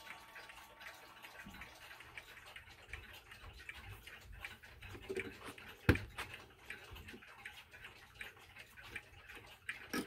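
Mechanical clocks ticking, with a hand handling a tambour mantel clock: a sharp click about six seconds in and another near the end.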